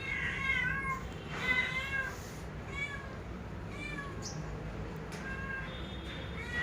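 Domestic cat meowing repeatedly: about six high-pitched meows, each bending in pitch, spaced roughly a second apart.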